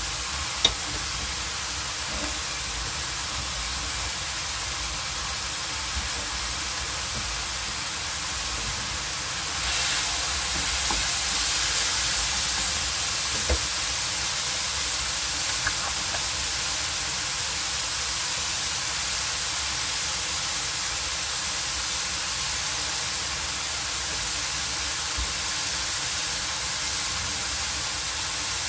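Cabbage and mixed ground meat stir-frying in a pan: a steady sizzle that grows louder and brighter about ten seconds in, with a few sharp clicks.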